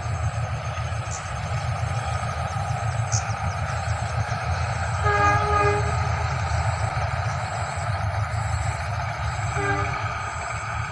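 Locomotive horn of a passenger train passing in the distance, sounding twice: a blast of under a second about five seconds in and a shorter one near the end, over a steady low rumble.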